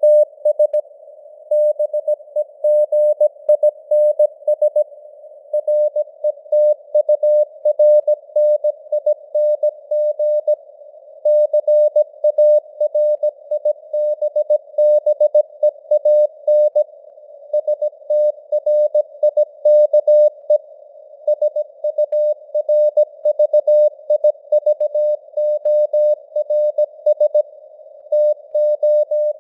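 Morse code (CW) sent at 17 words per minute: a single steady mid-pitched tone keyed on and off in dots and dashes, with short gaps between letters and words. A narrow band of simulated radio hiss sits under the tone throughout.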